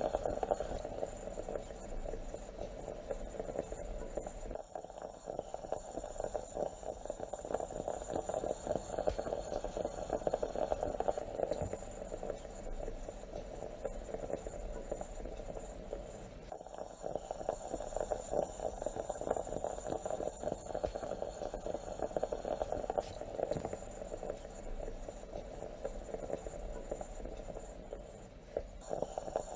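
Moka pot (stovetop coffee maker) brewing, a steady dense bubbling and sputtering as the coffee is pushed up into the top chamber, with brief lulls about every twelve seconds.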